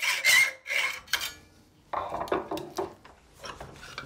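Quick back-and-forth strokes of a hand tool rasping on a piece of wood, about three a second, that stop a little over a second in. They are followed by wooden clattering and knocks as the workpiece is handled on the workbench, with one sharp knock at the end.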